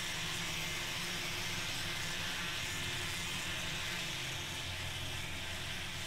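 Electric angle grinder with a sanding disc running steadily against carved wood: a constant motor hum under an even abrasive hiss.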